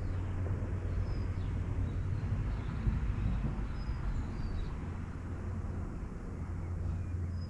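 Outdoor background: a steady low rumble with a few short, high bird chirps scattered through it.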